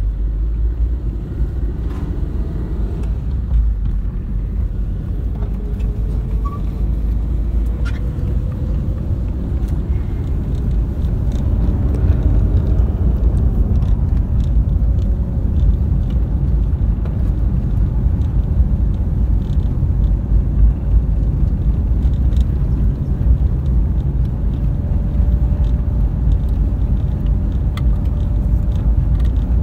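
Steady low rumble of a motor vehicle on the move, with faint engine tones drifting up and down in pitch and a few light clicks and rattles.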